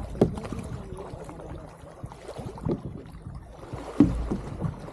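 Kayak paddles dipping and splashing in calm river water in irregular strokes, with drips and the odd knock. A brief low rumble comes about four seconds in.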